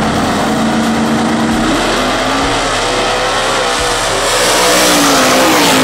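Two drag-racing cars, a Corvette and a purpose-built chassis car, launching off the line and accelerating hard side by side down the strip. The engine notes climb after about a second and a half and are loudest about five seconds in as the cars pass close by.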